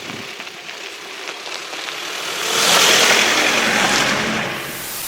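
Car going by: engine and tyre noise that swells to its loudest about halfway through, then fades.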